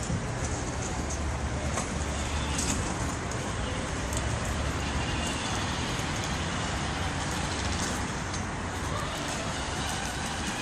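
Road traffic: a steady low vehicle hum with a hiss of road noise.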